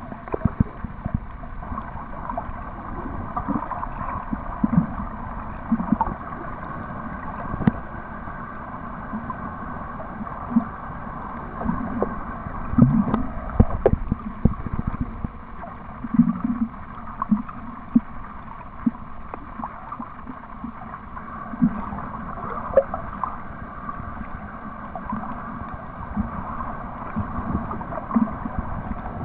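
Muffled underwater noise heard by a submerged camera: a steady wash with irregular low gurgles and occasional small knocks.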